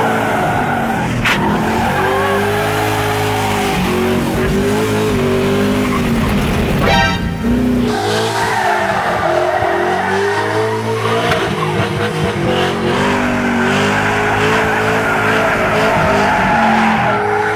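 Carbureted LS-swapped 5.3 V8 of a 1990 Chevrolet C1500 pickup, with headers and a Holley 750 double-pumper, revving up and down hard while the rear tires spin and squeal through slides and donuts.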